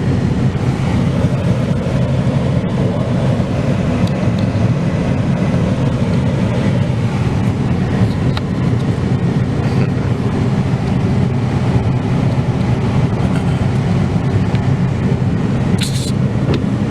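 Steady low rumble of a vehicle heard from inside its cabin, with a few faint clicks near the end.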